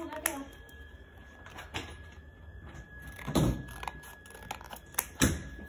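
Double-sided tape being handled and cut: a few short, sharp snips and rustles, the loudest about three and a half seconds in and again near the end.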